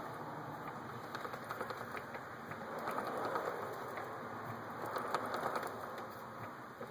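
2006 Yamaha R1's drive chain ticking rapidly and irregularly over a steady whirr that swells and eases twice: the ticking chain the owner is complaining of.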